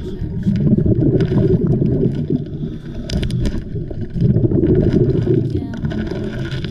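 Muffled underwater rumbling and gurgling of a scuba diver's exhaled bubbles, heard through an action-camera housing and swelling and fading every second or two. A few sharp clicks come a little past the middle as rocks and fishing lures are handled.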